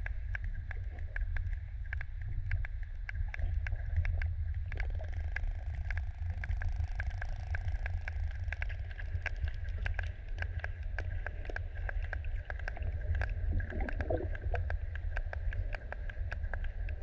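Sperm whale clicks heard underwater: sharp, irregular clicks a few times a second over a steady low rumble of water on the camera housing.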